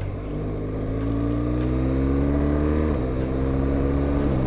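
BMW motorcycle engine accelerating hard, its pitch climbing, with an upshift about three seconds in and another near the end, over a steady rush of wind.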